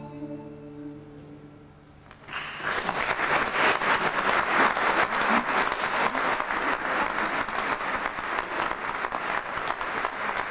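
The last note of a song for voice and classical guitar dies away, and about two seconds in an audience starts applauding, a dense steady clapping that carries on to the end.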